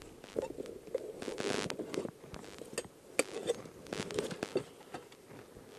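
Irregular clicks, knocks and crackles of scrap being rummaged through by hand in a skip, with pieces of cardboard, plastic and metal shifted and clattering against each other.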